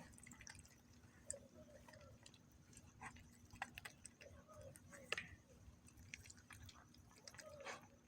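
Near silence with faint, scattered crunching clicks of a cat chewing food.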